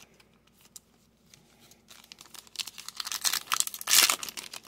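Foil trading-card pack wrapper crinkling and tearing open. It starts about two seconds in and is loudest near the end.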